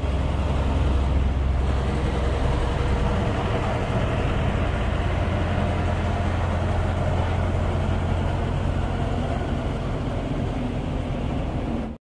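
Tandem double-drum road roller's diesel engine running as the roller rolls across fresh asphalt, a steady low rumble that cuts off suddenly near the end.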